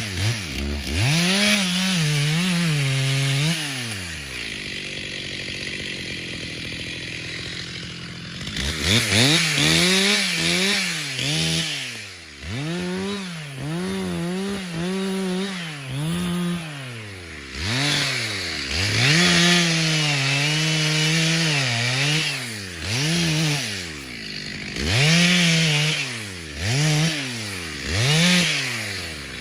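Petrol chainsaw revved hard and let fall back again and again, each rev rising and dropping in pitch within a second or two. A quieter spell at lower revs comes from about 4 to 8 seconds in.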